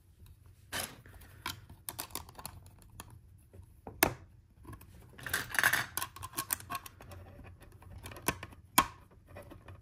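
Small plastic LEGO pieces being handled and pressed into place: sharp irregular clicks, with a short spell of denser clicking and rattling about five to six seconds in.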